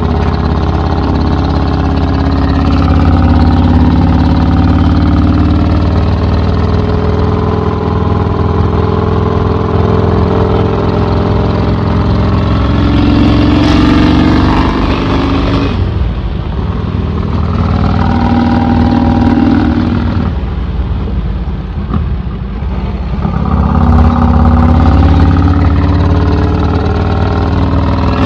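Vincent 1000cc V-twin motorcycle engine with an open straight-through exhaust, pulling hard on the road: the engine note climbs with the revs, falls away twice around the middle as the throttle is shut, and climbs again near the end.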